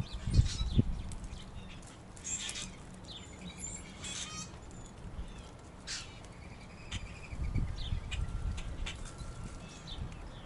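Backyard birds chirping and calling in short, scattered notes, with several low thumps about half a second in and again around seven to eight seconds in.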